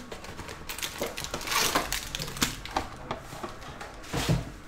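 Foil-wrapped trading card packs being handled and set down in a stack: several short crinkles and light taps, unevenly spaced.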